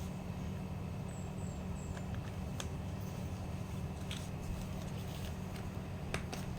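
A few light clicks and taps of plastic parts being handled, scattered through, over a steady low hum.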